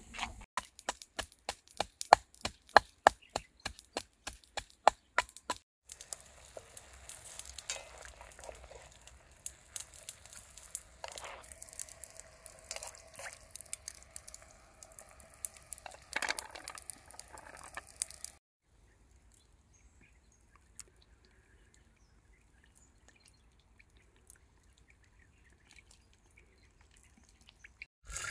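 Cooking sounds in three parts: a quick run of sharp knocks, about five a second, for some five seconds; then a denser stretch of clatter and hiss; then near silence with a few faint clicks for the last ten seconds.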